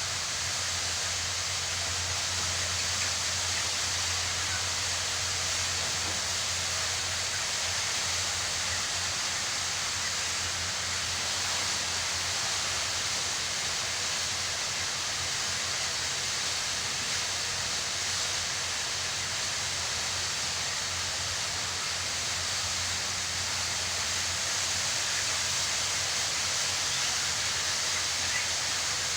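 Steady ambient noise inside a broiler chicken shed: a constant, even hiss-like din with a low hum underneath, unchanging throughout.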